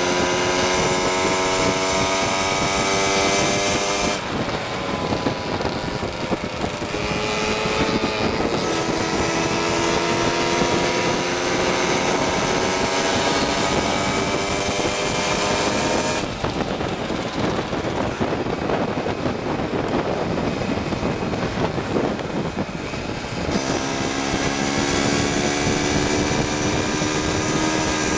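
Small two-stroke engine running under way, heard from on board. Its pitch climbs slowly, drops off about four seconds in, climbs again from about eight seconds, drops off again near the middle, and climbs once more near the end, over a steady rush of wind.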